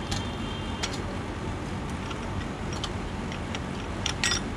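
A chrome aftermarket silencer being pushed onto a Royal Enfield Interceptor 650's exhaust pipe, giving a few light metallic clicks and taps, with a short cluster of them near the end. A steady low rumble runs underneath.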